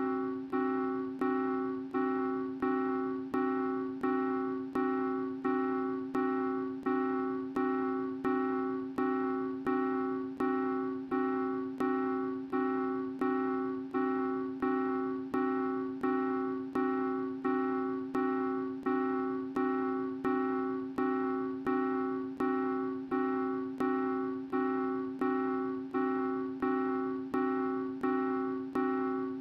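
The same soft keyboard chord struck over and over, a little under twice a second, each strike fading before the next: a short piece of cartoon music looped without change.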